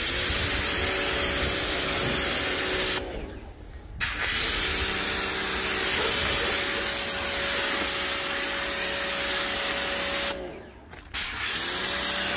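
Pressure washer spraying a jet of water over a car, the hiss of the spray over the steady hum of its pump motor. The trigger is let go twice, about three seconds in and again near the end, and the motor stops for about a second each time before it spins back up.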